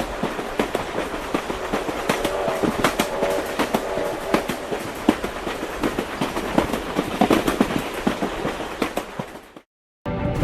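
Train running on rails, a dense irregular clatter of sharp clicks over a steady rumble with a few brief tones, cutting off suddenly near the end.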